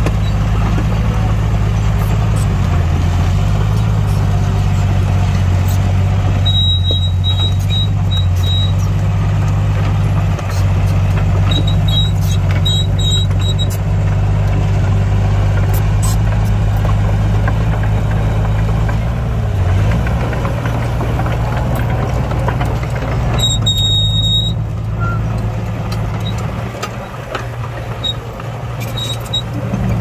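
Diesel engine of heavy earthmoving machinery running steadily, its pitch dipping briefly a few times. Short bursts of high-pitched beeping from a reversing alarm come through on and off.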